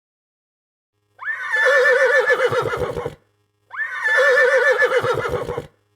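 Horse whinnying twice, two matching calls of about two seconds each with a quavering, wavering pitch: the same recording played twice.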